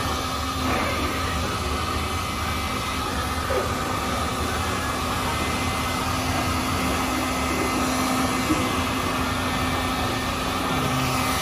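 Electric heat gun running steadily, its fan blowing hot air with a constant hum as paint protection film is heated and wrapped over a hood edge.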